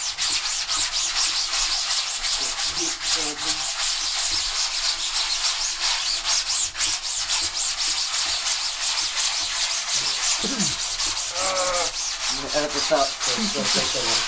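A sponge scrubbing the mesh of a screen-printing screen in quick, even back-and-forth strokes, several a second. It is working emulsion remover in to strip the old emulsion off the screen.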